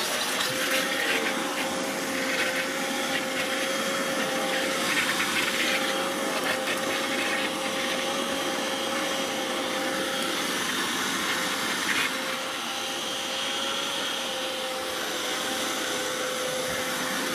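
Countertop blender with a glass jug running steadily, its motor holding one even pitch as it churns a thick, pale mixture. A brief knock comes about twelve seconds in, and the motor runs on slightly quieter after it.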